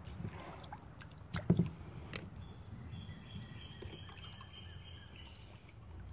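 Water lapping and sloshing against a kayak's hull as it drifts, with a sharp knock on the hull about one and a half seconds in and a lighter one just after. A faint thin high tone runs through the middle.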